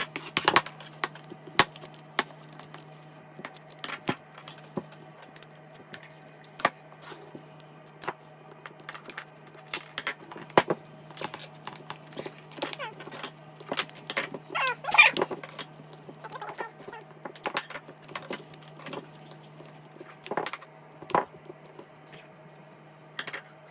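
Scissors and hands cutting and pulling the rubber skin off a Stretch Armstrong toy whose gel filling has hardened solid: irregular sharp clicks and snaps with a brief rustling scrape, over a low steady hum.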